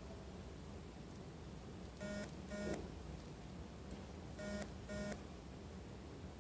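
An electronic device beeping: two pairs of short, steady-pitched beeps, the first pair about two seconds in and the second about two seconds later.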